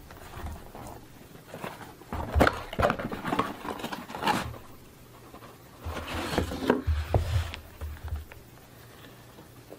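A cardboard box being opened by hand: the lid scrapes and rubs as it is lifted off, with scattered taps and soft thumps as the box and its molded pulp tray are handled. The knocks and scrapes come in two bunches, about two to four seconds in and again about six to seven seconds in.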